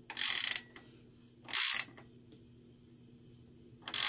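Ratchet wrench clicking in three short bursts as a bicycle's front axle nuts are tightened.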